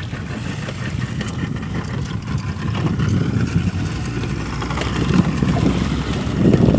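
Small fishing boat's engine running steadily with a low rumble, with wind buffeting the microphone, stronger near the end.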